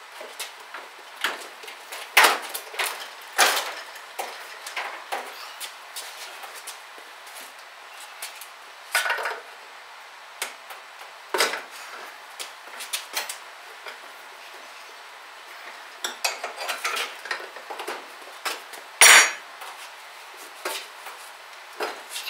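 Irregular metallic clanks and knocks from a Harbor Freight 61179 mini tire changer as its steel bar and the wheel rim are worked to force a small tractor tire's first bead onto the rim. The loudest clank comes near the end.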